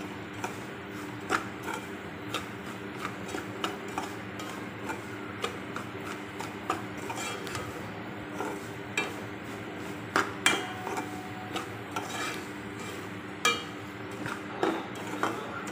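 A metal spoon scraping and knocking irregularly against a steel pot while stirring semolina roasting in oil for suji halwa, with a few sharper knocks. The stirring is kept up continuously so the semolina does not form lumps.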